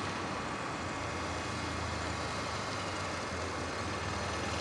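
Motorcycle engine running at low speed at a distance, its low hum fading slightly and then returning near the end, over a steady outdoor noise haze.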